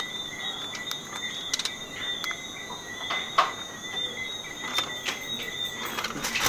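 Aluminium foil crinkling, with light scattered clicks and rustles as sliced vegetables and herbs are pressed onto a fish lying on the foil, over a steady high-pitched whine.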